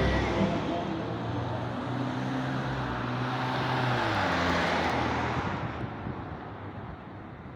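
A motor vehicle's engine running close by and passing, its note dropping about four seconds in, then the sound fading away.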